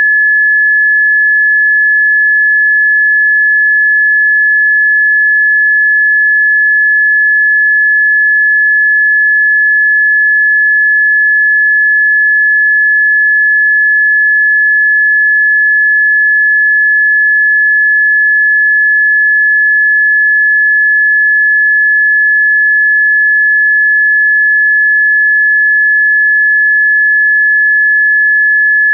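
Electronically generated Rife frequency tone: a single pure, steady, high-pitched sine tone held without any change in pitch or loudness.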